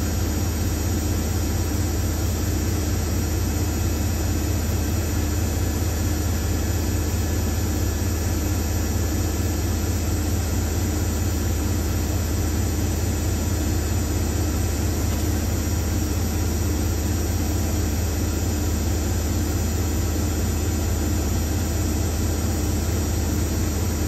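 Hoover Nextra top-loading washing machine on a spin-only cycle, its drum spinning steadily at one constant speed with a low, even hum.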